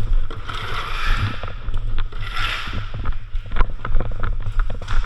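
Steady low rumble of wind and movement noise on a body-worn action camera, with irregular clicks, scuffs and rustles of gear as the wearer moves, and two brief hissy swells.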